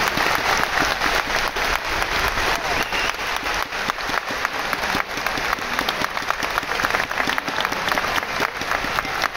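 Large crowd applauding, many hands clapping steadily and densely as the school song ends.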